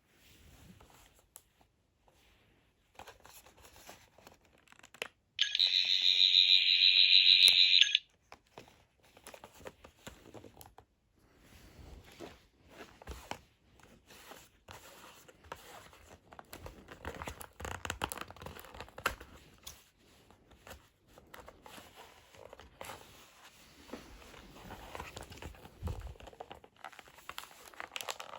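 Cardboard and plastic packaging rustling and crinkling as a parcel is opened by hand, with one loud rasping rip of packing tape, about two and a half seconds long, a few seconds in.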